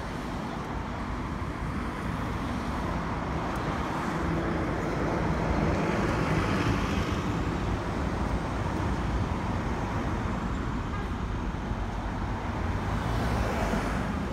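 Nova Bus LFS city bus driving past in street traffic: its engine and tyres grow louder, are loudest about halfway through, and fade as it pulls away. A car passes close near the end.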